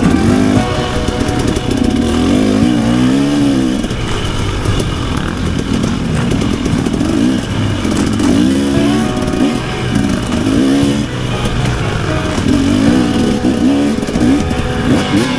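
Off-road motorcycle engine under way, its pitch repeatedly climbing and dropping as the throttle is worked through gear changes.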